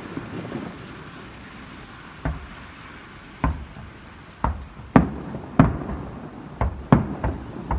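Fireworks shells bursting: separate sharp booms from about two seconds in, coming faster toward the end, after the fading rumble of earlier bursts.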